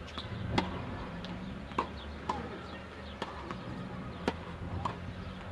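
Tennis rally on a hard court: a tennis ball being struck by rackets and bouncing on the court, about six sharp pops a half second to a second apart.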